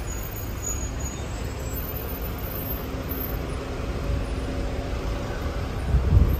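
Street traffic: a steady hum of road vehicles, with a louder burst of low noise near the end.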